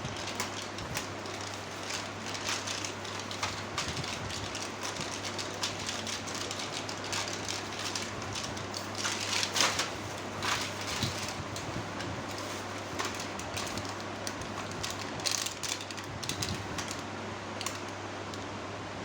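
Packaging being handled: continuous crinkling and rustling with many small clicks and taps, loudest a little past halfway, over a steady low hum.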